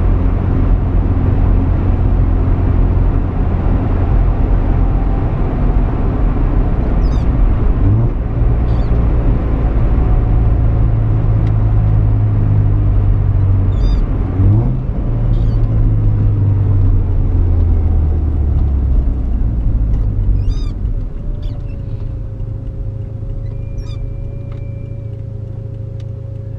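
Inside the cabin of a 1985 Mazda RX-7 GSL-SE: the 13B rotary engine and road noise at highway speed, with two short rises in engine pitch at gear changes, about 8 and 14 seconds in. About 20 seconds in, the sound drops noticeably quieter as the car slows to a stop at idle.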